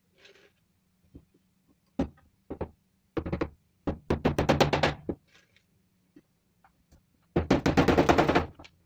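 Hammer driving nails into the edge of a wooden board: a couple of single blows about two seconds in, then quick runs of rapid taps, the longest two in the middle and near the end.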